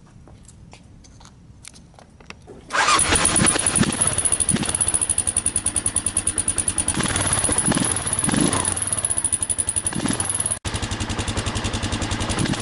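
Kawasaki KLR650 single-cylinder engine running with an even pulsing beat, cutting in suddenly about three seconds in. It is heard first through the original stock muffler, the exhaust that carries the KLR's typical chirp. Near the end an abrupt cut brings in the same muffler after holes have been punched in it, with a slightly different beat.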